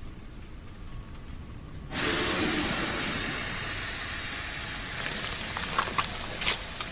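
Anime sound effects for the Colossal Titan: a low rumble, then about two seconds in a sudden loud rushing hiss of steam that slowly fades, with sharp crackles and snaps near the end.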